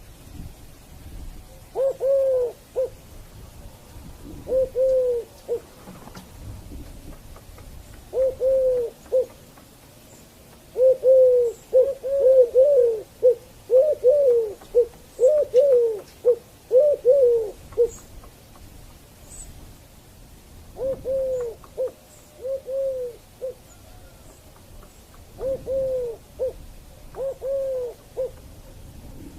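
Dove cooing: low coos in phrases of one drawn-out note followed by short clipped notes, repeated with pauses between, and a faster run of coos in the middle.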